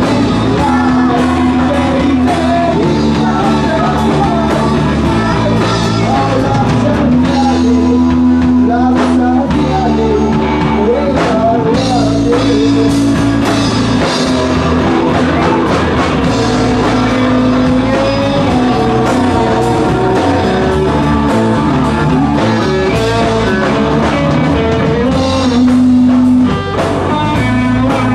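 Live rock band playing loudly: electric guitars and drum kit, with singing.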